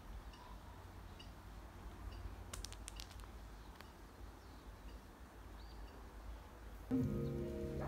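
Faint ambience with a steady low rumble and a few soft sharp clicks about two and a half seconds in, with faint bird chirps; background music starts near the end.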